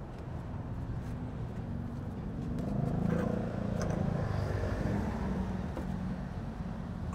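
Small Honda motor scooter engine running at low speed, swelling louder in the middle as the scooter pulls slowly out of its parking spot, with a couple of light clicks about three seconds in.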